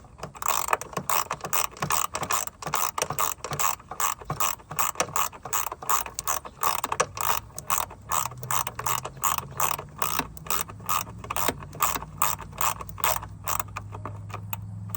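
Hand ratchet wrench clicking in quick back-and-forth strokes, about three to four a second, as a bolt is worked. A low steady hum comes in about halfway and grows louder toward the end.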